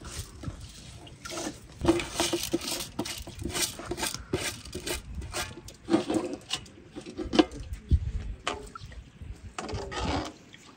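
Wet washed rice scraped by hand out of an aluminium basin into a pot of milk, with splashing and dripping. The metal basin knocks against the pot again and again, some knocks ringing briefly, and a metal spoon scrapes in the pot near the end.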